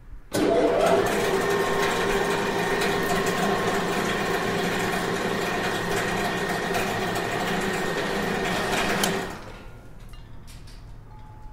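Electric factory machinery switched on at a wall switch: it starts abruptly and runs with a steady mechanical hum and whir of several held tones for about nine seconds, then is switched off and winds down.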